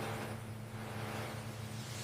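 Industrial machinery running with a steady low hum and a faint hiss.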